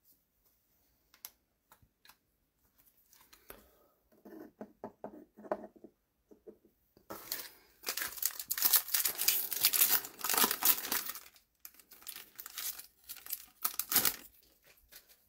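A foil Topps Chrome trading-card pack being torn open and its wrapper crinkled. A few light clicks of card handling come first, then dense crinkling from about halfway through to near the end.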